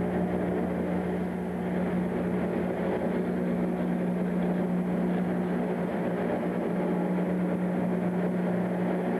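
Steady mechanical hum with two held low tones and a rushing noise above them, from the drive machinery of a Doppler weather radar antenna turning inside its radome.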